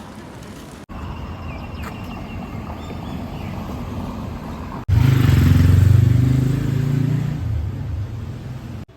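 Vehicle engine noise in three short cut-together clips; in the last and loudest, an engine runs close by with a low hum that fades a little near the end.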